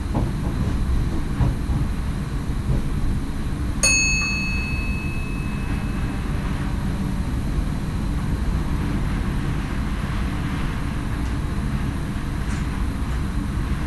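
NS SGM Sprinter electric train running, a steady low rumble heard inside the driver's cab. About four seconds in, a single bright bell-like chime strikes in the cab and rings away over a second or two.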